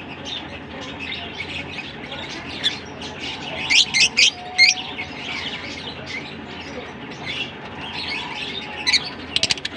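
A flock of caged lovebirds, blue masked and Fischer's, chattering in a constant stream of high chirps. A few loud, sharp shrieks cut through about four seconds in, and more come again near the end.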